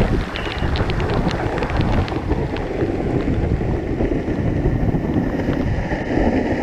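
Waterfall crashing down a rock face into its plunge pool: a loud, steady rush of falling water, with short sharp ticks over the first two seconds or so.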